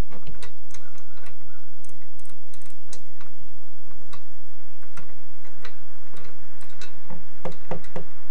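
Scattered metallic clicks and ticks of a hand tool working a bolt out of an earth auger bit, with a quicker run of louder clicks near the end.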